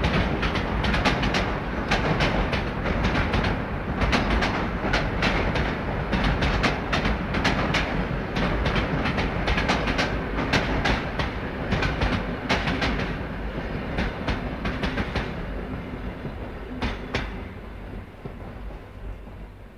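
Motorised Lego train running on plastic track: a steady motor-and-wheel rumble with many sharp clicks as the wheels cross track joints. It grows fainter from about two-thirds of the way through.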